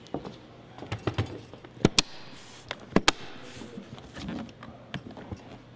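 Latches of a hard plastic equipment case being snapped open: sharp clicks, the loudest in two close pairs about a second apart, with lighter knocks from the case being handled.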